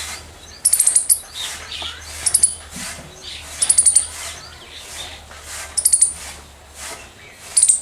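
Indian palm squirrel giving loud, high-pitched chirps in quick runs of four to six sharp notes, a run about every second and a half. A steady low hum sits underneath.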